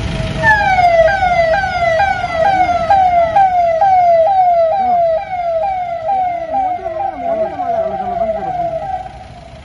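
Police vehicle siren in a fast yelp: a short falling tone repeated a little over twice a second after a held tone at the start, cutting off about nine seconds in. A fainter second warbling tone runs beneath it in the second half.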